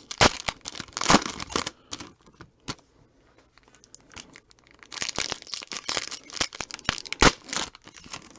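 Trading-card pack wrappers being torn open and crumpled, crackling and crinkling in two busy spells: one in the first two seconds and another from about five to seven and a half seconds in.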